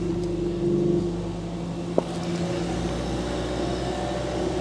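Ford Fiesta ST-3's turbocharged four-cylinder engine idling steadily just after a cold start, through a modified exhaust with a Milltek backbox; one sharp click about two seconds in.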